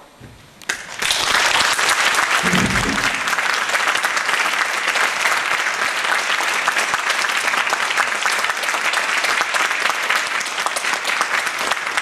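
Audience applauding. A short, nearly quiet pause at the end of the piece gives way about a second in to dense, steady clapping.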